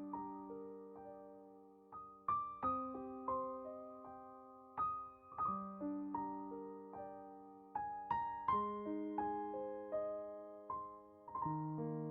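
Gentle solo piano background music: slow broken chords, each note struck and left to ring and fade.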